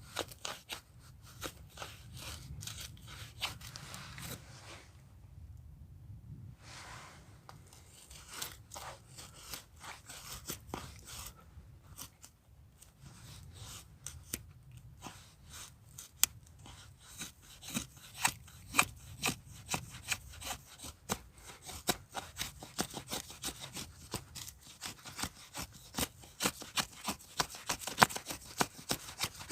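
A blade working wood by hand, such as sawing or shaving firewood: many short, irregular scraping strokes with sharp clicks. It pauses briefly a few seconds in, then grows louder and busier.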